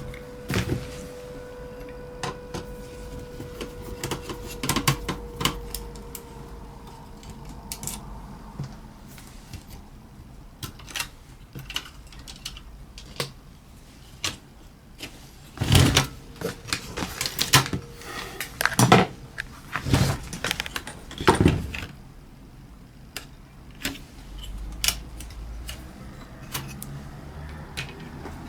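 Scattered clicks, taps and knocks of small hard parts and tools being handled while a car stereo head unit is worked on, with a cluster of louder knocks past the middle.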